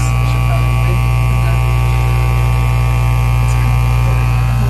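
Needle vacuum seeder running with a loud, steady electric hum from its vacuum and the vibrator that shakes the coated seeds in its pan.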